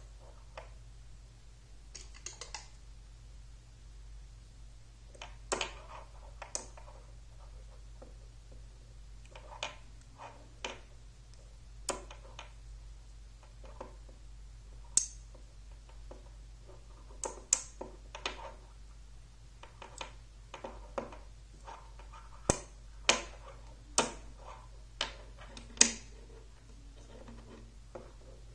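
Magnetic building rods and small steel balls clicking together as they are snapped into a dome by hand: sharp metallic clicks at irregular intervals, with several louder snaps in the second half. A faint steady hum runs underneath.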